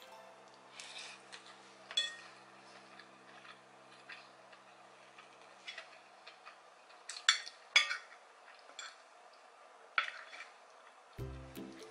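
Metal spoon and fork scraping and clinking against a ceramic plate while eating, with scattered sharp clinks; the two loudest come close together a little past halfway.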